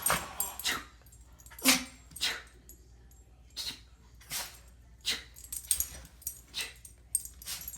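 Dog sneezing again and again: a string of about ten short, sharp sneezes, less than a second apart.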